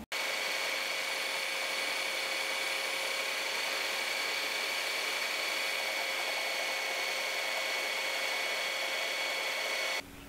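Belt sander running steadily with a steel T-bolt's head held against the moving belt, grinding it thinner; a steady motor whine sits over the sanding noise. It starts abruptly and cuts off suddenly just before the end.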